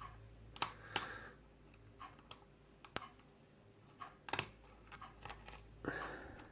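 Small metal clicks and light scraping of a hook pick working the pins of a pin-tumbler lock cylinder under tension from a tension wrench, irregular and quiet.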